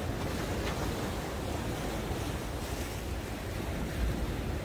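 Rough sea surf surging and breaking against concrete tetrapods on a breakwater: a steady, rumbling wash of water.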